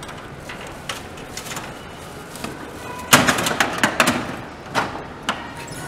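Gachapon capsule-toy machine being worked by hand: about three seconds in, a quick run of ratcheting clicks and plastic clunks as the crank knob is turned and a capsule drops into the chute, then a couple of single knocks near the end.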